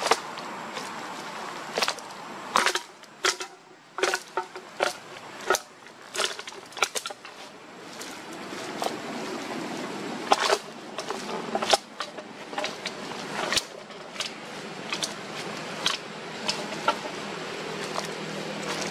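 A wooden-framed wire-mesh animal trap being stamped flat underfoot: a series of irregular sharp cracks and snaps as the frame breaks and the mesh is crushed.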